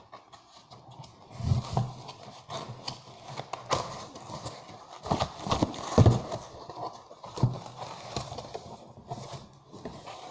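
Cardboard packing inserts being handled and shifted inside a box: irregular knocks, thuds and scraping, the loudest thud about six seconds in.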